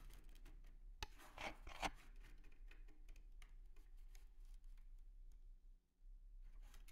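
Faint handling of 3D-printed plastic flexures squeezed and released by hand: a click about a second in, two brief scrapes just after, then faint scattered ticks.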